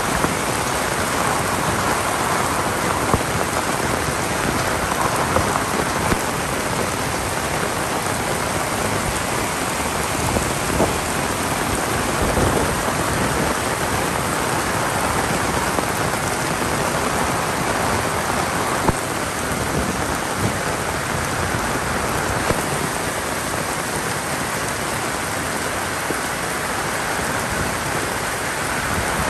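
Heavy rain falling steadily, a dense even patter with a few louder drop hits now and then.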